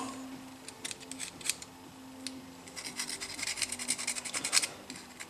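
Light rubbing and scraping with small clicks as a chainsaw carburetor's small parts are handled and cleaned. A quick run of scratchy clicks comes from about three to four and a half seconds in. A faint steady hum runs underneath.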